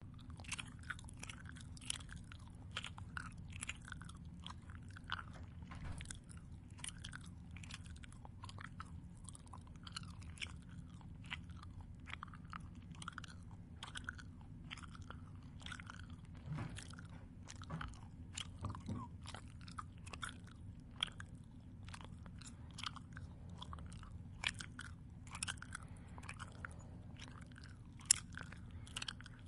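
Close-up chewing: a mouth chewing something crunchy, with a rapid, uneven train of small crunches and wet clicks, several a second, over a faint low hum.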